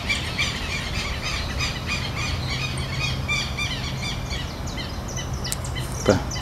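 Southern lapwings calling in alarm: a rapid, continuous run of harsh, squealing calls, about four a second. A short, louder thump comes near the end.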